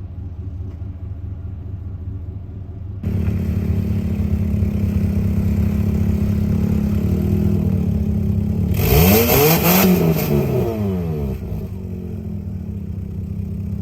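Car engine running steadily. It gets louder about three seconds in and revs up and back down about nine seconds in.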